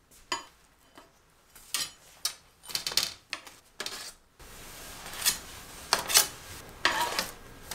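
Metal cake server and aluminium baking trays clinking, with buns set down on a perforated cooling tray: a string of light metallic knocks and scrapes.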